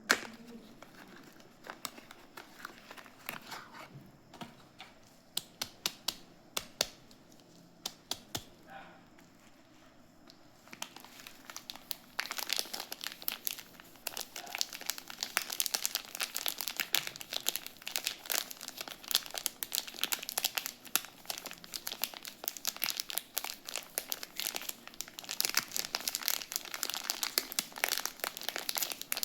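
Soap packaging being unwrapped by hand. Scattered crinkles and ticks at first, then from about twelve seconds in a steady, dense crinkling of the wrapper.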